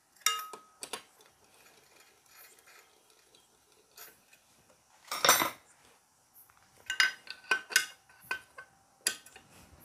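Metal clinks and clatter of hand tools working the 8 mm nuts that hold a plate on a Hero HF Deluxe motorcycle engine's clutch side as they are tightened: scattered sharp clicks, a longer, louder burst about five seconds in, and a quick run of ringing clinks around seven to eight seconds.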